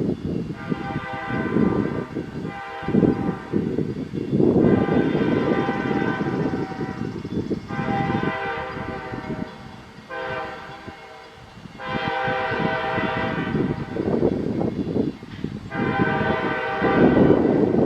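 Federal Signal Thunderbolt 1003 outdoor warning siren sounding during its test. Its tone swells and fades every few seconds over a low rumble.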